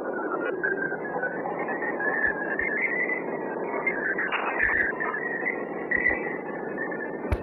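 Sped-up audio sonification of plasma waves recorded by NASA's Juno spacecraft near Jupiter's moon Europa: a dense steady hiss with warbling whistle tones that drift up and down in pitch, like R2-D2. The shifting pitch follows the varying plasma density.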